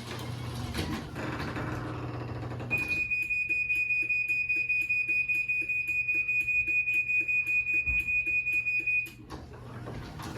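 LiftMaster garage door opener running as it learns its own forces, its motor humming; about three seconds in a rapid, high-pitched beeping starts over the hum and stops about six seconds later.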